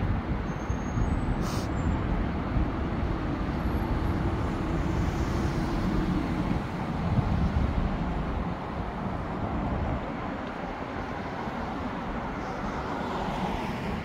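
Road traffic on a multi-lane city street: cars passing in a steady rush of tyres and engines, louder in the first half and easing off later.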